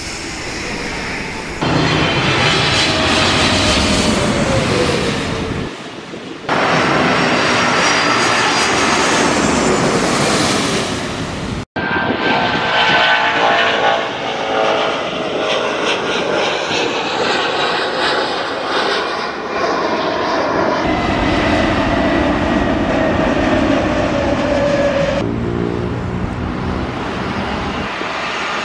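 Jet airliners passing low on landing approach: a loud, steady engine noise with a whine that glides in pitch. It breaks off and changes abruptly several times, with one brief dropout about twelve seconds in.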